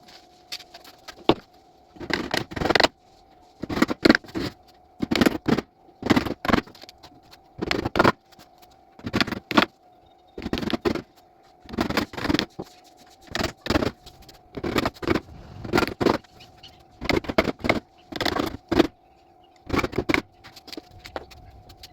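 Hand-tool work on wood: short clusters of sharp strikes or strokes repeat about once every second and a bit, over a faint steady hum.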